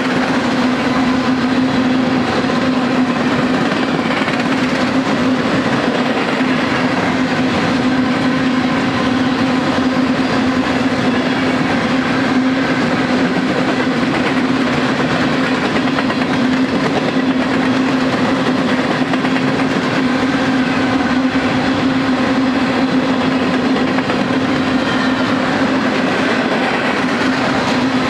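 Union Pacific freight train's loaded cars rolling steadily past, steel wheels running on the rails with a constant noise and a steady low hum.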